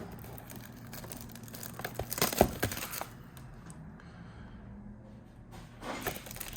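Packaging crinkling and tearing as a box of trading cards is opened by hand, with sharp crackles about two seconds in and again near the end.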